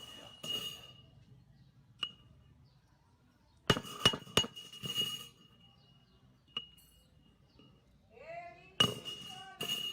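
Sheet-metal grill parts knocked and tapped together: about nine sharp metallic clinks at irregular intervals, with a quick cluster of three in the middle, each leaving a short ring at the same pitch.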